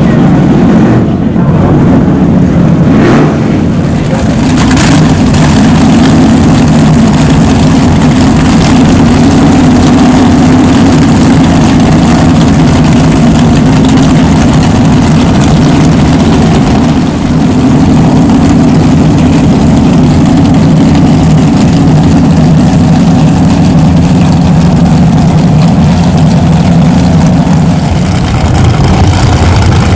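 Scarab 38 KV offshore powerboat's engines running at speed: a loud, steady drone, its note shifting lower near the end.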